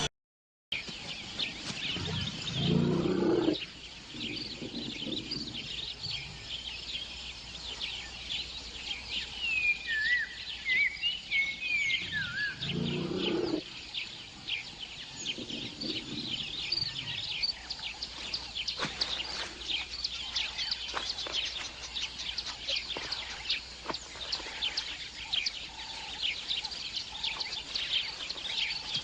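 Outdoor ambience of many birds chirping and calling, with a run of quick gliding whistles about ten to twelve seconds in. Two louder low sounds stand out, one about three seconds in and another about thirteen seconds in that cuts off suddenly.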